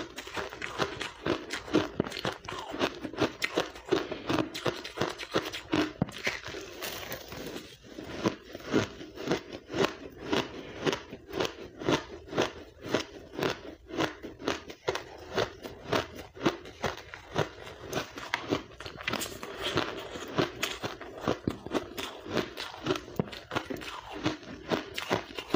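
Crushed ice from a blender being chewed and crunched in the mouth, close to the microphone: a dense, uneven run of sharp crunches, several a second.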